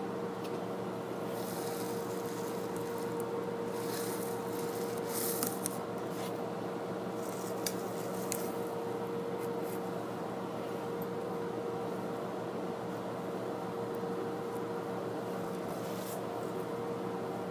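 Steady background hum with a held tone. Over it are light rustling and a few small clicks as a small metal heart-shaped tin and paper stickers are handled and set down, mostly between about two and six seconds in and again near the end.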